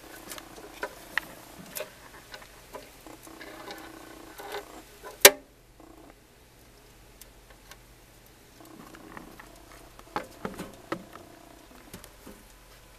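Hermit crabs' legs and shells clicking and tapping on a clear plastic tub: scattered irregular clicks, with one sharp loud click about five seconds in.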